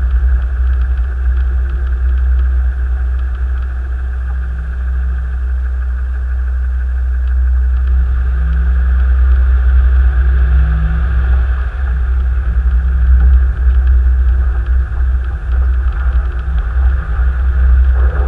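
Car being driven, heard from inside the cabin: a steady low engine and road rumble. About halfway through, the engine note rises as the car speeds up, and the noise gets louder from there on.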